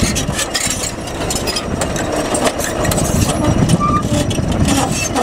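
Crawler bulldozer's diesel engine running as its steel tracks grind over loose rocks, with frequent clanks and crunches from the track links and stones as it packs down a stone fill.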